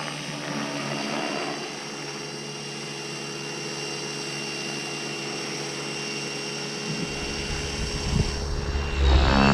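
Align T-Rex 550E electric RC helicopter flying, with the steady whine of its motor and spinning rotors. A low rumble joins about seven seconds in, and near the end the helicopter sound gets much louder and its pitch shifts as it comes close.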